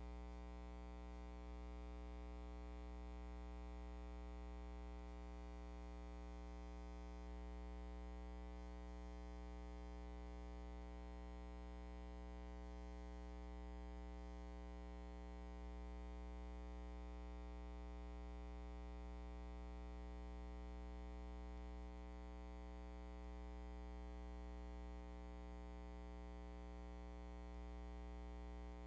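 Steady electrical mains hum and buzz, a strong low hum with a ladder of even overtones above it, unchanging throughout and with nothing else heard.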